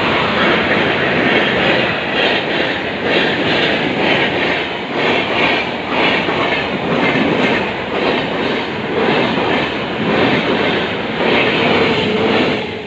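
A train passing close by: a loud, steady rumble of wheels on rails with a regular clickety-clack beat from the rail joints.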